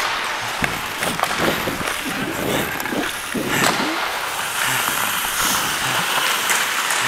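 Ice hockey skate blades carving and scraping across the ice in quick strides, with scattered sharp knocks, heard close up from the skater himself.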